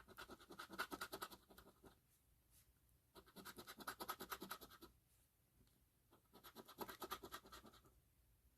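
Scratch-off lottery ticket being scratched in three quick bursts of rapid scraping strokes, with short pauses between them.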